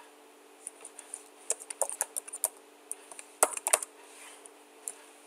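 Computer keyboard typing in short irregular bursts of keystrokes with pauses between, over a faint steady hum.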